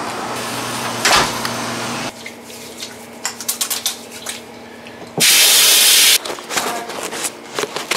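Hands being washed at a plastic utility sink, with scattered small splashes and rubbing. A loud gush of water from the faucet lasts about a second, a little past the middle. Before it, a steady background noise stops abruptly about two seconds in.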